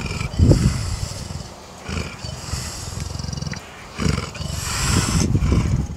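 Leopard growling and snarling in repeated deep, rough bouts, loudest about half a second in and again from about four seconds in.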